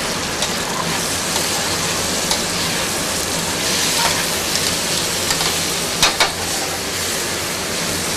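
Shrimp, chicken and vegetables sizzling in butter in a stainless sauté pan over a gas burner as they are stirred. Metal tongs and a spoon scrape and clink against the pan now and then, loudest twice in quick succession about six seconds in.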